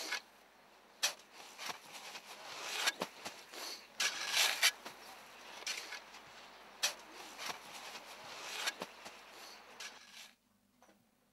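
Shovels scraping and digging into snow in irregular strokes, stopping abruptly about ten seconds in.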